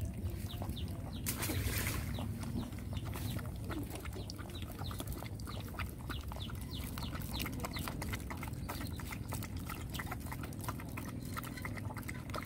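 Several puppies lapping milk from a plate: rapid, overlapping wet clicks and slurps. A brief rush of noise comes about a second in.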